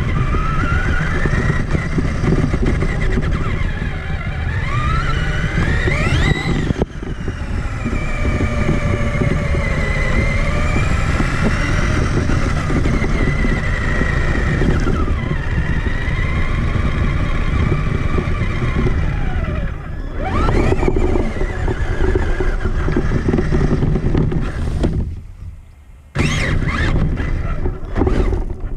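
Traxxas Summit RC truck's electric motor and geared drivetrain whining, the pitch rising and falling as the throttle is worked, over heavy rumbling from the tyres and chassis on rough ground. The sound cuts out briefly about three quarters of the way through, then picks up again.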